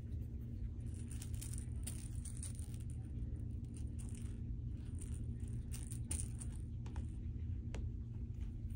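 A cat wand toy's beaded string and knit ball lightly jingling and rattling in scattered small clicks as it is jiggled at the cat, over a steady low room hum.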